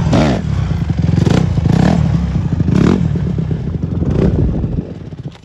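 Honda CRF150R dirt bike's four-stroke single-cylinder engine revving hard in repeated throttle surges, the pitch sweeping up at the start, as the bike is lifted into a wheelie. The engine sound drops away near the end.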